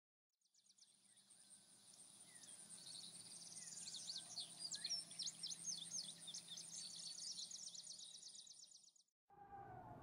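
A chorus of birds chirping and trilling, with many quick, high-pitched rising and falling notes. It fades in gradually and cuts off suddenly near the end, where a lower sound with a wavering pitch begins.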